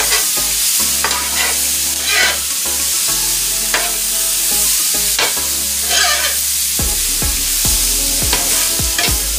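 Metal spatula scraping and tossing chicken and vegetables across a hot electric griddle, one scrape about every second, over the sizzle of the food frying.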